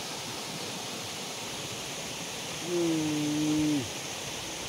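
Steady rushing of river water. About three seconds in, a single held call lasts about a second, its pitch dropping as it ends.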